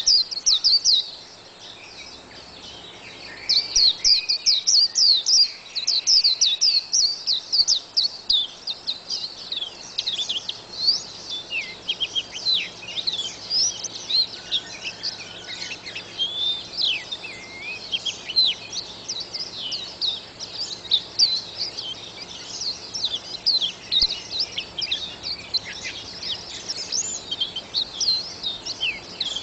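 White-eye (burung kacamata) singing a fast, continuous twittering song of rapid high chirps. There is a short pause about a second in, and the song resumes around three seconds.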